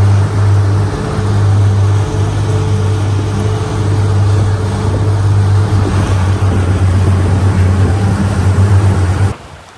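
Speedboat engine running under way with a steady low drone, over the rush of water from the wake; it cuts off abruptly near the end.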